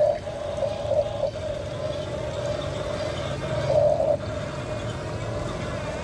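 Steady motor whine from a radio-controlled construction truck, briefly growing louder a few times, over a low rumble.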